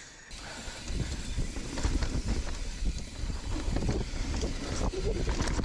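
Wind buffeting the microphone of a camera on a moving mountain bike, over a low rumble of tyres on the dirt trail and frequent short knocks and rattles from bumps.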